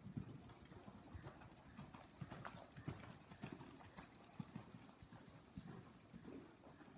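Hoofbeats of a ridden horse moving around a dirt arena: a quiet, continuing run of dull thuds, several a second.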